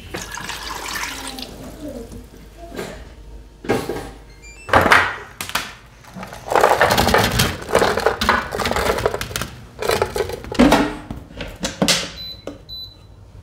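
Water poured from a glass bowl into a frying pan of udon noodles, followed by noisy handling and pouring sounds in the kitchen. Near the end an air fryer's control panel beeps twice as its buttons are pressed.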